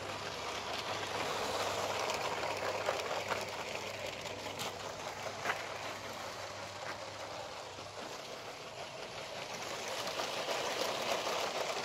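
Lego Powered Up passenger train running on plastic Lego track: a steady motor whir and wheel rattle, with scattered small clicks. It grows louder twice, about two seconds in and near the end.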